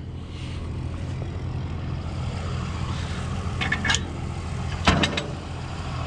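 Farm tractor engine idling steadily, with two sharp metallic knocks near the end as the hay mower's transport lock is worked loose so the mower can drop down.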